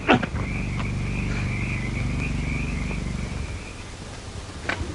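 A sharp click, then a high, wavering trill held for about three and a half seconds, over a steady low hum; two short clicks near the end.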